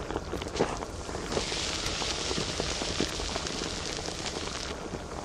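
A few light knocks, then a hot iron wok sizzling from about a second in, a steady hiss that cuts off near the end.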